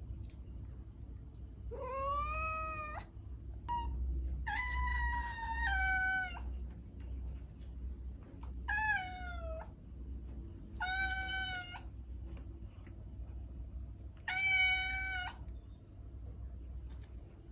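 Domestic cat meowing repeatedly: five meows a second or two apart, the second one long and dropping in pitch partway through.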